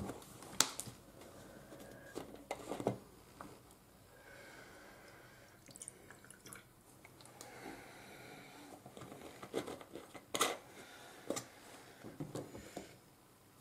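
Water poured from a plastic bottle into a small stainless-steel measuring cup, a faint trickle in the middle. Scattered light clicks and knocks of the cup and bottle being handled on the table.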